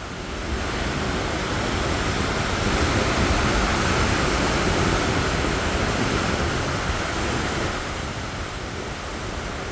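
Sea waves washing onto a sandy beach: the surf swells for a few seconds and eases off near the end.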